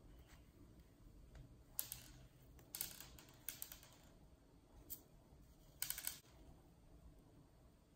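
Crisp crackling and rustling from a plush toy's polyester stuffing and the thin, foam-bead-filled inner pouch as they are pulled out and squeezed by hand, in several short bursts.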